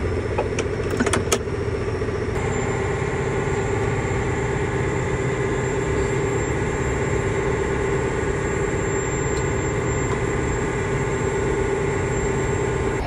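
John Deere 9330 tractor's diesel engine running, heard from inside the cab, with a few clicks in the first second or so. About two seconds in, a steady whine joins the engine note and holds. The engine is being revved because the tractor will not come out of park otherwise, a fault the mechanics put down to a pressure switch.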